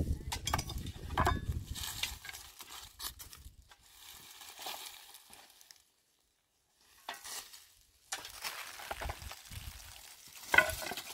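Digging in stony mountain soil: a pick striking and scraping through earth and loose stones, then hands scrabbling through gravelly soil with stones clicking against each other. A low rumble in the first two seconds, a brief silence about six seconds in, and one sharp knock near the end.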